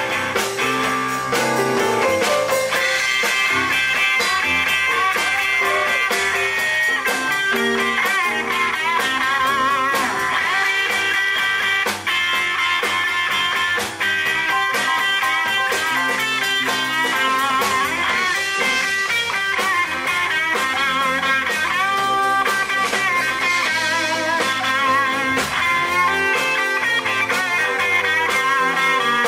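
Live blues-rock band playing, led by an electric guitar solo with bending, wavering notes over bass, drums and keyboard.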